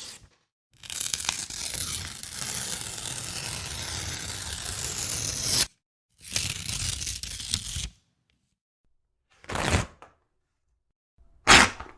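Paper being torn: one long rip lasting about five seconds, then a shorter rip, then two quick short tears near the end.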